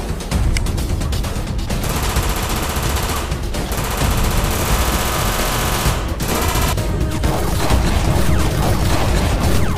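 Dubbed machine-gun fire sound effects, rapid shots in repeated long bursts, over background music.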